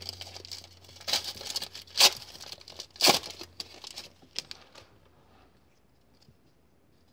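Plastic wrapper of a 2017 Panini Score football card pack being torn open and crinkled, with sharp rips about two and three seconds in.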